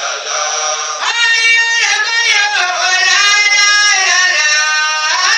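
A single high voice singing a melody in long held notes that slide up and down, coming in clearly about a second in after a rougher chanted sound.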